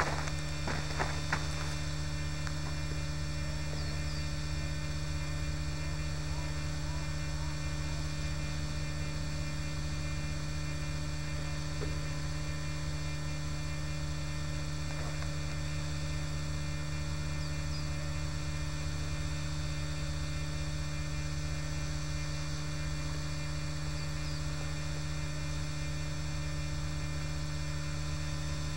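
Steady electrical hum, a constant low buzz with several held tones above it that does not change. A few faint ticks come near the start, and a few faint short high chirps are scattered through.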